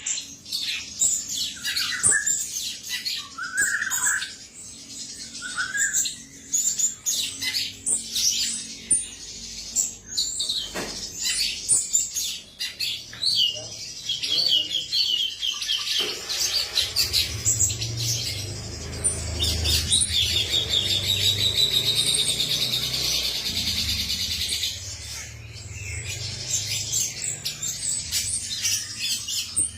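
Male cucak cungkok, a bulbul, singing a rapid series of chirps and whistled notes, with fast trilled runs in the middle. A low rumble runs under the song in the second half.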